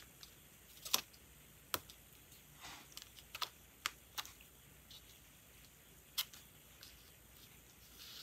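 Sparse light clicks and taps, about half a dozen spread out, from metal tweezers and fingers handling a strip of washi tape and laying it across a paper notebook page, with one soft rustle of the tape about a third of the way in.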